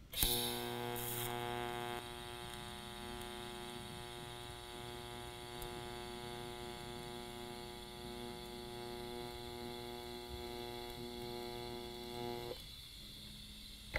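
TIG welding arc on an argon-purged stainless steel tube: a steady electric hum that strikes with a short burst of hiss, is louder for the first two seconds, and cuts off about twelve and a half seconds in as the arc is broken.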